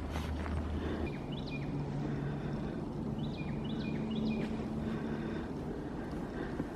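Outdoor ambience: small clusters of short bird chirps over a low, steady rumble.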